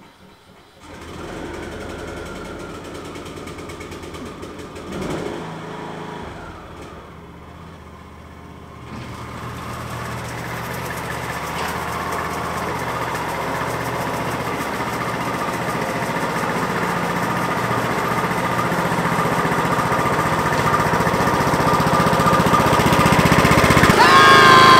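An engine running steadily, growing gradually louder over most of the stretch, with a short rising squeal near the end.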